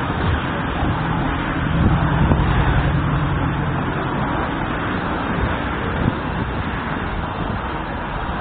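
Steady road-traffic rumble, a low vehicle drone swelling for a couple of seconds about two seconds in.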